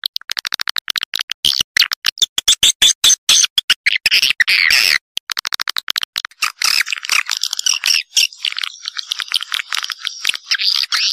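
Swiftlet calls used as a nest-house lure sound: fast trains of dry clicks, a short chirring trill a few seconds in, then dense high twittering chatter from about two-thirds of the way through.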